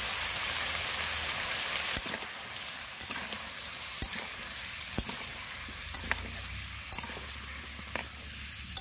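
Potato and papaya pieces with spices sizzling in hot mustard oil in a pan, while a spatula stirring them knocks against the pan about once a second.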